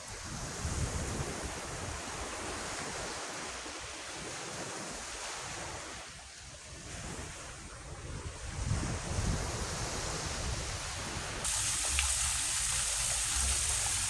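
Ocean surf washing ashore, with wind buffeting the microphone in low gusty rumbles. About eleven and a half seconds in, the sound changes abruptly to a louder, brighter steady hiss.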